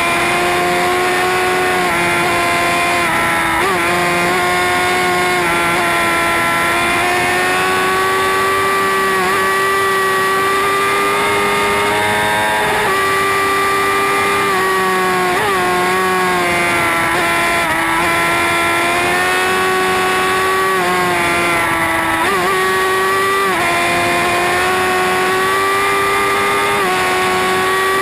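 Sport motorcycle engine running hard at high revs at highway speed, a high, steady whine that dips briefly in pitch several times and climbs back.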